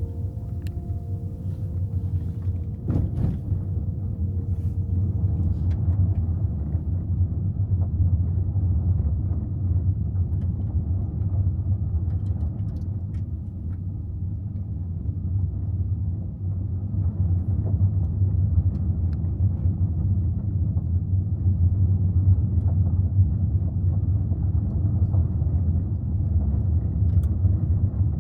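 A steady low rumble with a few faint clicks; a last musical note fades out in the first few seconds.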